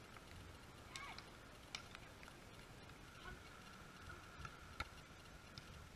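Near-quiet outdoor ambience with a faint steady tone, broken by a few sharp slaps of a hand on a beach volleyball. The sharpest, near the end, is the server striking the ball.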